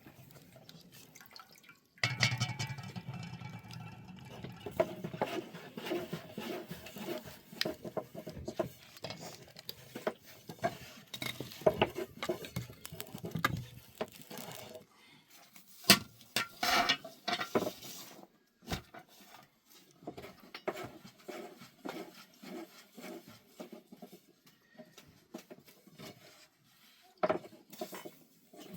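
Water pouring into a metal vessel for about twelve seconds, then scattered clinks and knocks of pots and dishes being handled.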